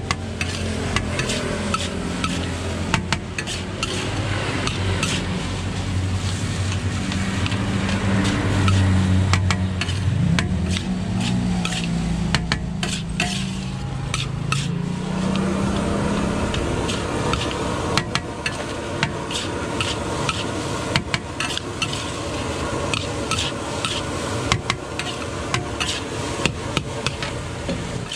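A metal spatula scraping and knocking against a large wok as fried rice is stir-fried, with a steady sizzle underneath. A low droning hum runs beneath it through the first half, shifts in pitch, and fades out about sixteen seconds in.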